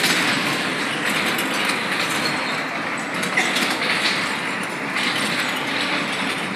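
Amusement-park ride car rolling along its track, a steady noisy rattle with a few faint clicks.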